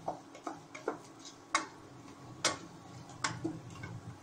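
Metal spoon knocking and scraping against the inside of a metal pressure cooker while vegetables and masala are stirred: irregular sharp clicks and taps, the loudest a little past halfway.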